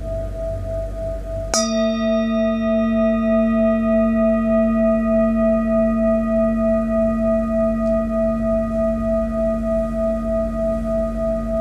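Metal singing bowl struck once about a second and a half in, then ringing on with a low hum and several higher overtones that slowly fade. A higher tone, wavering in loudness, is already sounding before the strike and carries on beneath it.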